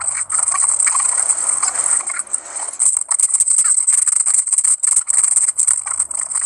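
Masonry work on concrete hollow blocks: a trowel scraping mortar and tapping on block and bucket in scattered short knocks, over a steady high-pitched hiss.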